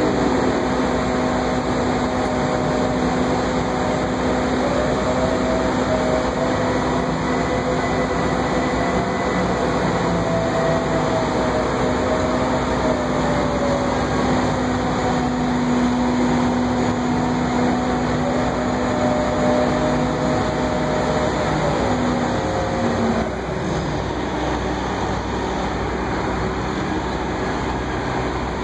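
Crane engine running steadily while it lowers a precast concrete wall panel, a machine drone with a whine that slowly wavers in pitch. The sound drops a little in level late on.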